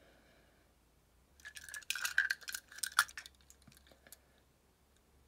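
Two die-cast metal toy cars clinking and clicking against each other as they are handled and stacked, a cluster of light clinks from about a second and a half in until about four seconds in.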